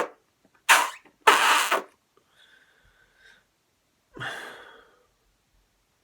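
A person sneezing: two sharp, noisy bursts about half a second apart, followed by a softer breath about four seconds in.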